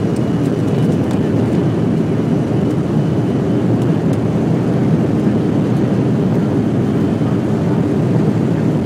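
Boeing 737 jet engines at takeoff power: a loud, steady rumble that holds level throughout.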